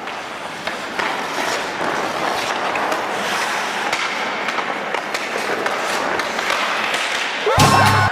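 Ice hockey skate blades scraping and gliding on rink ice, with light clicks of sticks on the puck. A short, loud burst with bending tones comes near the end.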